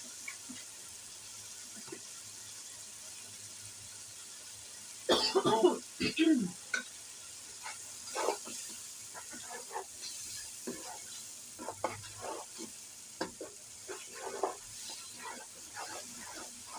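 A sauce frying in a pan: a steady sizzling hiss, with short clinks and scrapes of a spoon stirring it. A louder, brief cluster of sounds comes about five seconds in.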